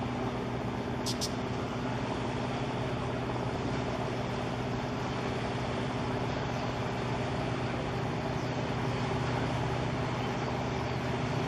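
Steady low engine hum at a constant pitch over a wash of outdoor noise, with two brief high chirps about a second in.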